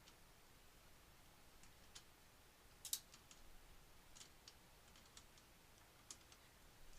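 Faint scattered clicks and taps, with one sharper double click about three seconds in: small computer parts and screws being handled in a PC case.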